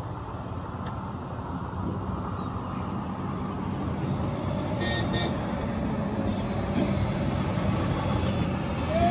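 Mahindra Thar's engine running at low revs as the SUV crawls over a concrete road divider, with a steady low drone. Traffic noise grows gradually louder as a lorry approaches and passes near the end.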